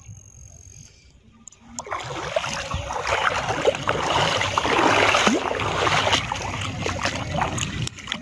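Water splashing and sloshing, starting about two seconds in and going on as a loud, continuous, noisy rush.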